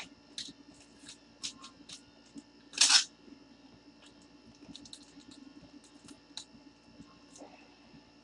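Small handling sounds: a scatter of light, sharp clicks and ticks, with one louder rustle lasting a fraction of a second about three seconds in, over a faint steady electrical hum.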